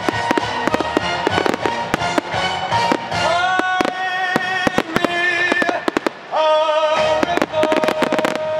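Competition fireworks display: rapid bangs and crackling shells going off in dense succession, with a brief lull about six seconds in, over the display's music soundtrack.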